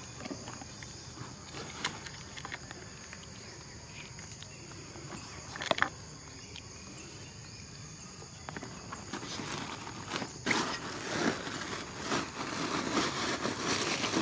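Steady high drone of insects, with a few sharp clicks, then footsteps and rustling on leaf-strewn dirt from about nine seconds in.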